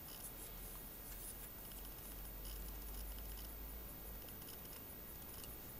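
Faint light clicks and rustling of a grey plastic model-kit sprue being handled in the fingers, over a low steady hum.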